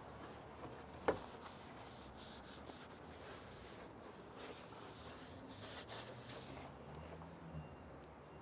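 Faint, scratchy scrubbing of a detailing brush over a wet, foamed engine bay in short strokes, with one sharp click about a second in.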